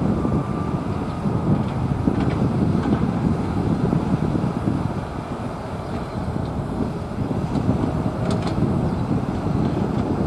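Boeing 737-700's twin CFM56-7B turbofans at takeoff thrust as the jet lifts off and climbs away: a steady low rumble, easing slightly about halfway through.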